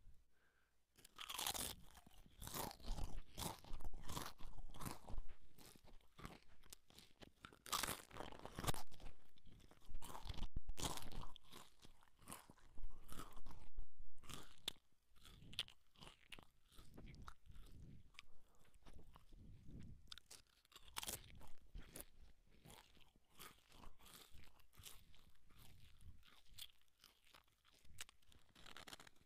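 Potato chips being bitten and chewed close to a headset microphone: repeated crisp crunches, loudest in the first half, then softer, sparser chewing.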